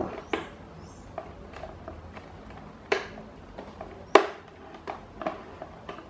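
Sharp plastic clicks and lighter taps from a Britânia Ventus 30 Six fan's motor housing being handled and seated on its stand column: three distinct clicks, the loudest about two-thirds of the way through.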